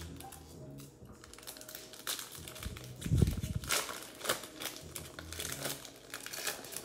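Wrapper of a 2020 Panini Mosaic football card pack crinkling as gloved hands tear it open and slide the card stack out, in irregular crackles that are loudest about three seconds in.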